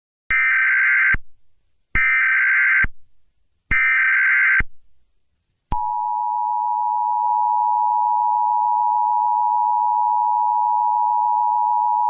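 Emergency Alert System header: three bursts of SAME data tones, each just under a second long, followed after a short gap by the steady two-tone EAS attention signal, which starts about six seconds in and holds.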